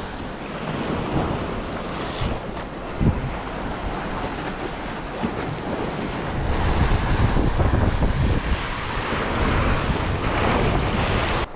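Sea waves washing and breaking against rocks, with wind buffeting the microphone, the wind rumble growing stronger in the second half.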